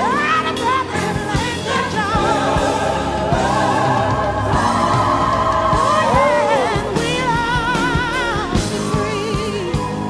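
A song: a singing voice holding long notes with a strong, wavering vibrato over music.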